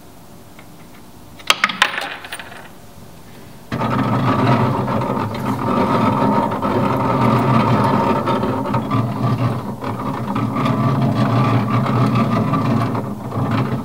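Electromechanical sculpture of wood and steel: a few sharp clicks about a second and a half in. Then, at about four seconds, its motor-driven mechanism starts abruptly and runs steadily with a humming drone and fine rapid ticking. It drops away near the end.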